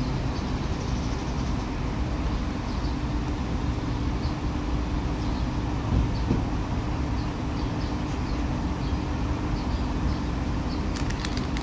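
Steady roar of highway traffic with a low hum, and faint short chirps scattered through it. A few short crackles near the end.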